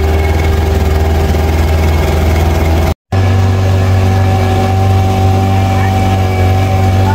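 Motor of a tourist dragon boat running steadily at cruising speed, a constant low engine drone, cut off for a split second about three seconds in and then running on.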